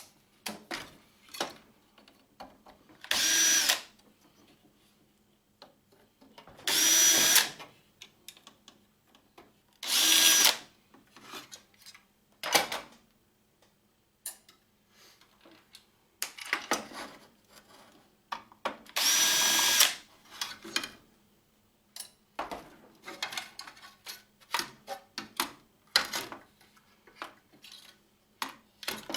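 Power drill/driver whirring in four short bursts as screws are run out of the metal printer case, with scattered clicks and clinks of screws and metal parts being handled between the bursts.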